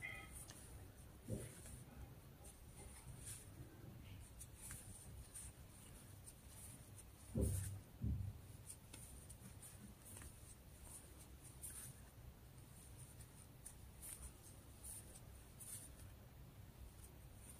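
Faint scratching and rustling of a metal crochet hook working combed cotton yarn, as stitches are pulled through. Two soft thumps come close together about halfway.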